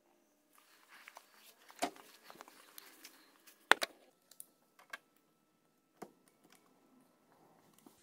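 Scattered clicks and light knocks from something being handled, with the sharpest click about midway.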